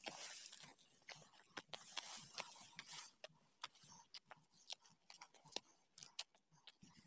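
Faint footsteps and rustling along a narrow dirt path through tall dry grass: irregular crunches and scrapes as feet tread on dry stalks and grass brushes past.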